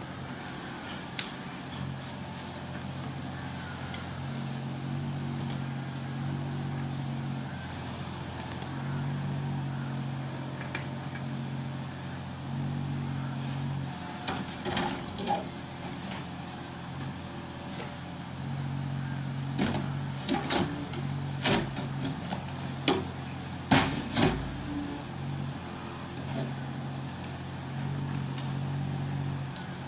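Mini excavator's engine running steadily, rising and falling in level as the hydraulic arm works. In the second half a run of sharp knocks and clunks as the bucket works at stone during demolition.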